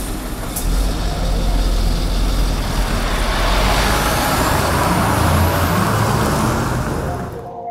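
Scania R 730 V8 truck driving past: a loud, deep engine rumble with road noise, and a thin whistle rising in pitch through the middle. It fades and cuts off near the end.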